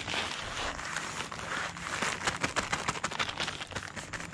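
A sack rustling and crackling as it is rubbed over a young mare's body to accustom her to it, a steady scratchy noise full of small crackles that grow denser toward the end.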